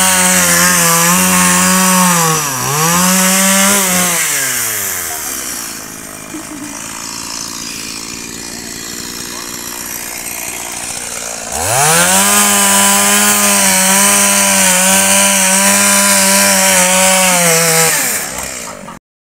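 Stihl MS 170 two-stroke chainsaw running at high revs with a steady pitch. It dips briefly, then drops back to a low run about five seconds in. About eleven seconds in it revs sharply back up to full speed and holds there until it tails off near the end.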